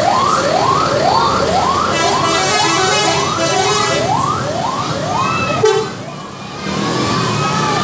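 Bus telolet horn sounding a siren-like whoop, a rising glide repeated about twice a second, with a lower horn tone held under it partway through. It cuts off with a short bang about five and a half seconds in.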